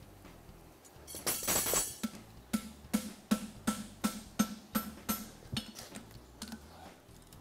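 Hammer striking white-hot steel on an anvil in a steady run of about three blows a second, each with a short metallic ring, as a horseshoe piece is forge-welded. A short rasping noise comes just before the blows begin.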